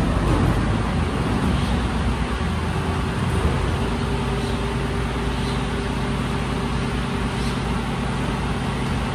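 Diesel engine of a Mercedes-Benz rear-loading garbage truck idling while it stands, a steady hum that settles into an even drone about two and a half seconds in.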